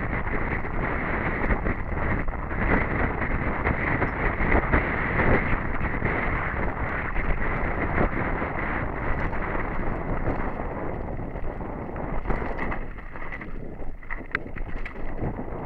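Wind noise on a helmet-mounted camera's microphone while a mountain bike descends a rocky dirt trail, mixed with tyre noise and the bike rattling and knocking over bumps. After about ten seconds the wind eases and sharper separate knocks and clicks stand out.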